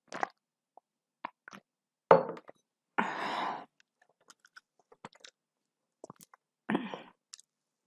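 Close-miked eating sounds: a gulp from a steel tumbler at the start, then chewing and small mouth clicks. A sharp, loud sound about two seconds in, and two short noisy bursts of about half a second, one near the middle and one near the end.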